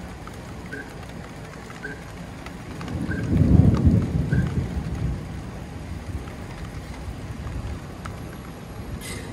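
A low, rolling thunder rumble swells about three seconds in and fades away over the next couple of seconds, over a steady hiss of rain.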